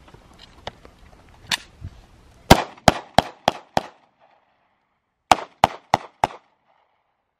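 Semi-automatic handgun fired in two quick strings: five shots about three a second, then a short pause, then four more.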